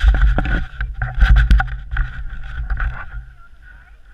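Ski poles clattering and knocking close to a body-mounted action camera, over a heavy rumble of handling noise. It dies down about three seconds in.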